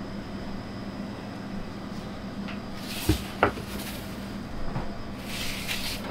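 Metal baking tray handled in a deck oven: two sharp clunks of metal on metal about three seconds in, with scraping as the tray slides, and more scraping near the end, over a steady low hum.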